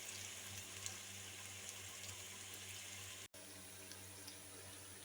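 Sliced onions frying in ghee: a soft, steady sizzle with small scattered crackles. The sound drops out for an instant about three seconds in.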